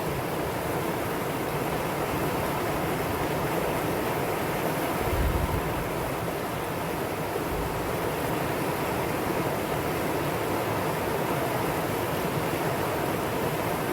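Valley stream water rushing steadily, an even, unbroken rush of flowing water, with a brief low swell about five seconds in.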